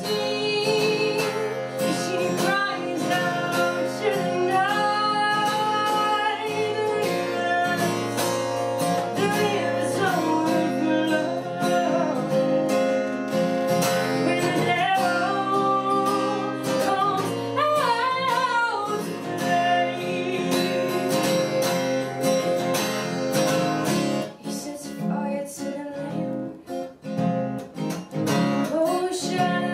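A woman singing and strumming an acoustic guitar. About six seconds before the end her voice drops out for a few seconds, leaving the guitar alone, and she comes back in singing just before the end.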